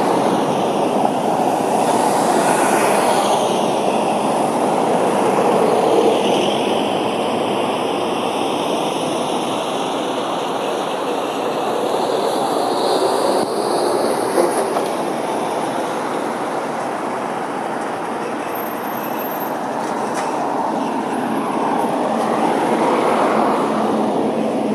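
Steady rumble of street traffic, with faint high tones sliding slowly downward for several seconds around the middle.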